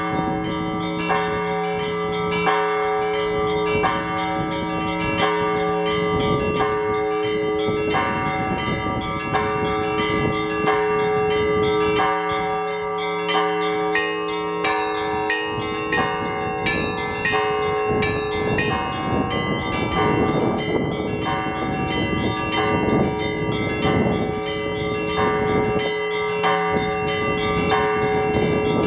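Orthodox church bells rung by hand: the small bells chime in a quick, repeating pattern over the sustained hum of the larger bells. The deepest tone dies away about halfway through and is struck again near the end.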